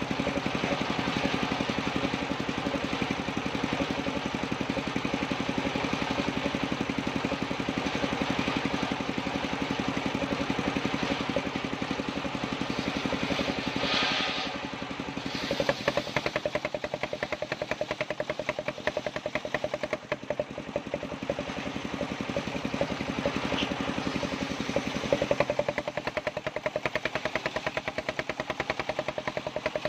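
Engine driving an assembled circular saw rig, running steadily with a rapid, even pulse. About halfway through, its tone changes to a different steady note.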